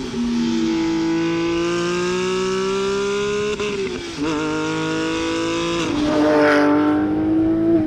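Porsche 997.1 GT3 RS's 3.6-litre Mezger flat-six accelerating, its pitch climbing steadily through the revs. The pitch drops sharply twice at upshifts of the manual gearbox, about three and a half and six seconds in, then climbs again.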